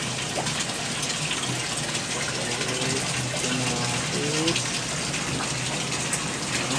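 Water running and splashing steadily in live seafood display tanks, a continuous rush with faint voices in the background.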